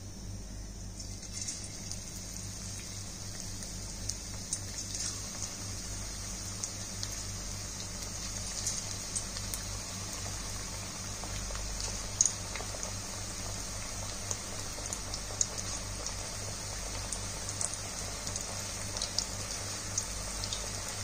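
Onion bhajiya batter deep-frying in hot oil in a kadhai: a steady frying hiss with scattered crackles and pops. It starts about a second in as the first batter drops into the oil.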